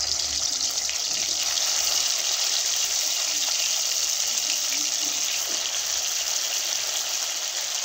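Marinated chicken drumsticks frying in hot oil in a kadhai, a steady high sizzling hiss as more pieces are laid in.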